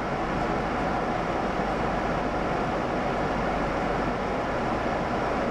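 Steady rushing noise of a Volantex Ranger G2 model plane in low, level flight: airflow and motor heard together.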